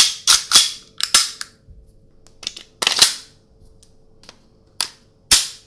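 Sharp clicks and clacks of an airsoft Glock's slide being fitted onto the frame rails and snapped home: a quick run of clicks at first, then single louder snaps about three seconds in and near the end.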